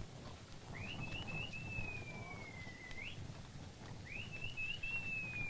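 Two identical whistled phrases about three seconds apart. Each is a few short rising notes followed by a long, slowly falling tone that flicks up sharply at the end, over a low rumble.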